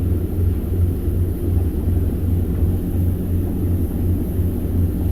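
The boat's engines running steadily under way, heard from the helm as a low drone that throbs about twice a second.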